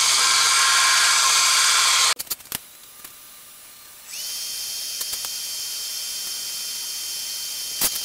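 Belt sander grinding the corners of steel doubler plates round, loud and steady, cutting off abruptly about two seconds in. After a few clicks, a steady, quieter welding hiss with a thin high whine starts about four seconds in as the pieces are welded.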